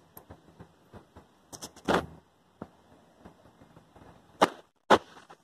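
A run of small clicks with three louder sharp knocks, one about two seconds in and two close together near the end.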